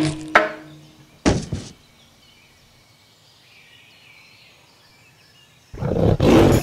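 Cartoon sound effects: a sharp knock, then a thud about a second later, followed by a few seconds of faint quiet ambience. Near the end a loud, rough roar from the cartoon tiger breaks in.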